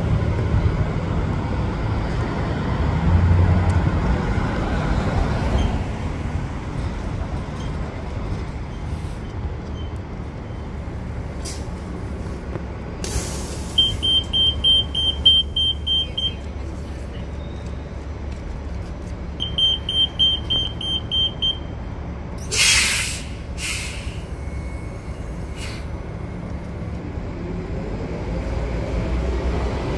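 A bus idling with traffic rumbling around it. A rapid high beeping, about four beeps a second, sounds twice for a couple of seconds each. Then three sharp hisses of released air follow in quick succession, the first the loudest.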